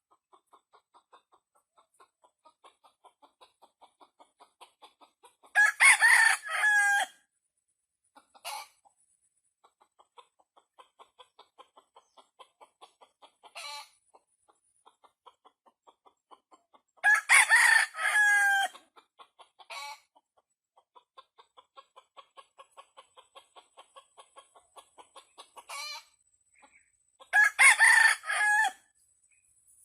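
A rooster crowing three times, about ten seconds apart, with a few short calls and soft, rapid clucking in between.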